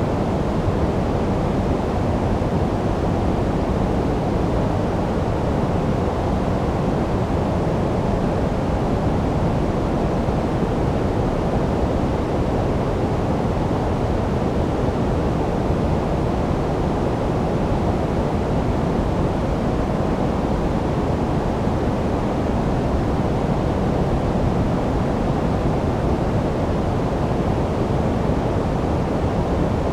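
Steady white-noise sleep track: an even, unbroken rushing hiss weighted toward the low end, with no change in level or character.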